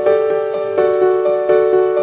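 Background piano music: a gentle melody with single notes struck about every half second and left to ring.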